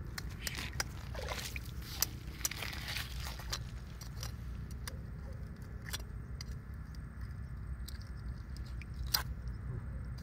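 A bent steel rebar hook scraping and clicking against an oyster shell on a rock as it pries the oyster open. There is a stretch of scraping in the first few seconds, then separate sharp clicks, with a steady low rumble underneath.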